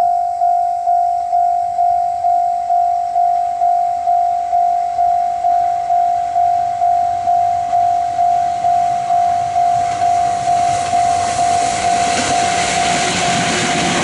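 Railway level-crossing alarm sounding a steady single tone, about two rings a second, while an electric commuter train approaches. From about ten seconds in, the rumble and rattle of the train passing close by swells, and the alarm stops shortly before the end.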